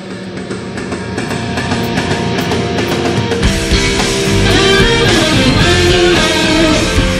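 Rock music soundtrack: a guitar-led passage that builds, with a heavier low end coming in about halfway through and the music growing louder.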